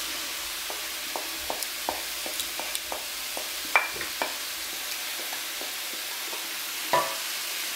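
Sliced vegetables sizzling in a frying pan with a steady hiss, while a wooden spoon scrapes leftover sauce out of a glass bowl into the pan, making many small clicks and taps. There are two louder knocks, one near the middle and one near the end.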